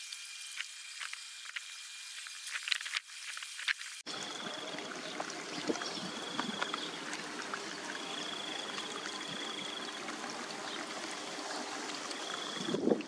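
Muddy puddle water trickling and running along a trench dug through a dirt road, draining off toward a culvert. About four seconds in the sound changes to a fuller flow, and a high trill repeats on and off behind it.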